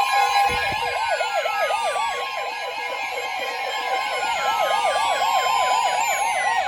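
NOAA Weather Radio warning alarm for a severe thunderstorm warning: the broadcast's steady 1050 Hz alert tone mixed with weather radios' own electronic siren alarms. One alarm is a fast yelp, repeating several times a second, and another is a slow falling wail.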